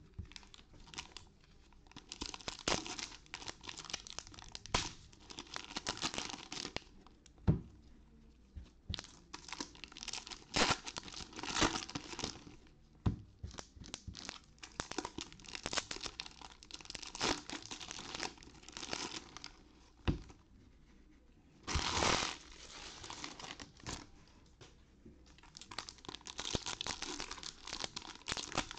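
Foil wrappers of Topps Stadium Club baseball card packs crinkling and tearing as they are ripped open, in stretches with short pauses and a few sharp taps.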